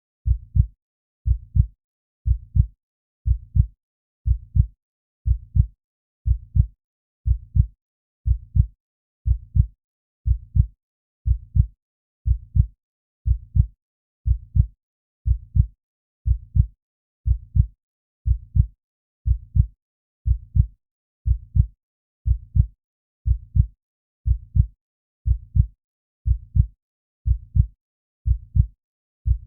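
Slow, steady heartbeat: a low double thump (lub-dub) repeating evenly about once a second, close to 60 beats a minute.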